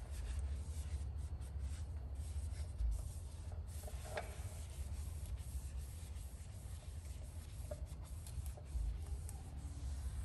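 Applicator pad rubbing ceramic coating onto a wheel in irregular strokes, with a short squeak about four seconds in, over a steady low rumble.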